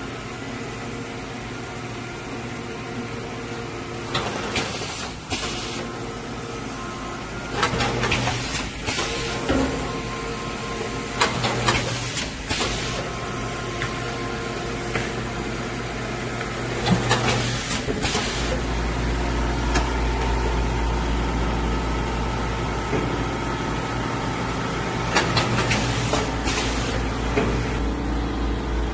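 Automatic L-bar sealer and heat-shrink tunnel packing machine running: a steady motor hum, with short loud mechanical noises every few seconds as the machine works through its cycle. A deeper, louder hum joins about 18 seconds in and holds to the end.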